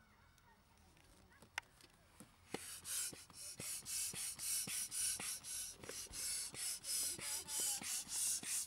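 Hand air pump worked in quick strokes, a rhythmic whoosh of air about twice a second as it inflates an Intex Challenger K2 inflatable kayak; the pumping starts about two and a half seconds in, after a single sharp click.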